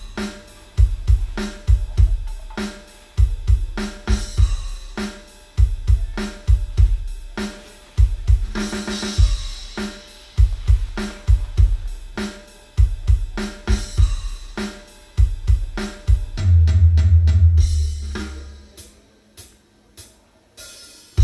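Drum-heavy music played loud through a Yamaha NS-SW700 subwoofer under test: deep kick-drum hits about twice a second with cymbals and hi-hat above. About three-quarters of the way in a long, deep bass note sounds for a couple of seconds, then the music drops quieter with only sparse hits.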